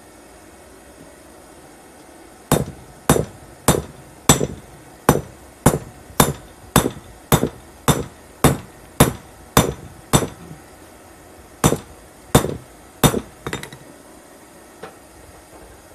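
Hand hammer forging red-hot coil-spring steel on an anvil: a steady run of about fourteen blows, a little under two a second, each with a short metallic ring, then a pause and three more blows.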